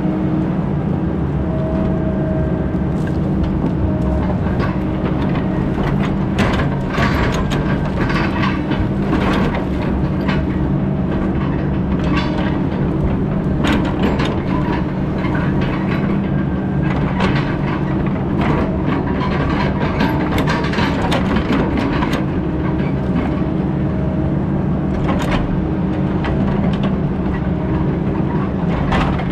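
Heavy diesel logging machine running steadily at a constant pitch, with irregular sharp cracks and clanks of metal and wood throughout.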